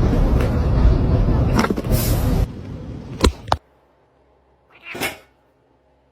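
Cats scuffling, with noisy rustling and sharp knocks that stop suddenly after about three and a half seconds, then one short cat sound about five seconds in.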